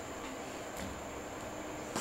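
Steady background hiss with a faint high-pitched whine, broken by a couple of light clicks, the sharpest one at the end.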